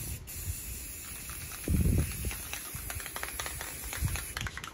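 Aerosol can of white spray paint hissing steadily as paint is sprayed onto the tumbler, cutting off shortly before the end. A dull thump of handling about two seconds in.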